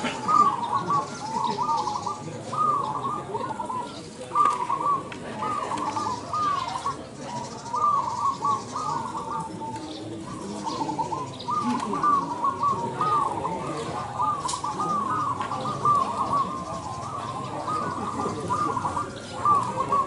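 Several zebra doves (perkutut) cooing at once, their repeated soft, trilling coo phrases overlapping almost without a pause.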